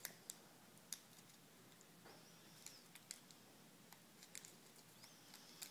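Near silence, with a few faint ticks and crinkles of a decal's paper backing being peeled off by hand.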